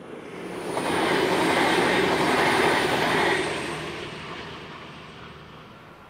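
V/Line VLocity diesel railcar passing at speed: a rushing train noise swells about a second in, holds for a few seconds, then fades away.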